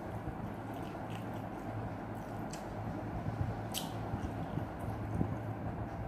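A person chewing a mouthful of spaghetti with a few short, sharp mouth clicks, over a steady low hum.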